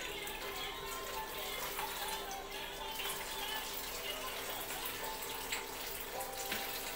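Kitchen tap running steadily into a plastic basin in the sink, with hands swishing and washing food in the water.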